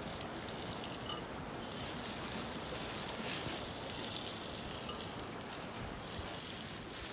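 Meat sizzling in an aluminium pot over an open wood fire: a steady hiss with faint small crackles.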